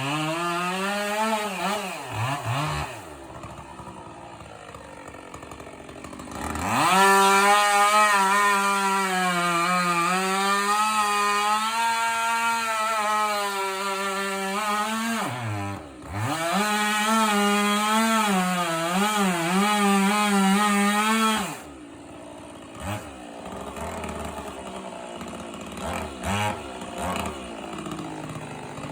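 Two-stroke chainsaw run at full throttle in two long bursts, its pitch wavering as it cuts into wood, dropping back to idle between the bursts and after them.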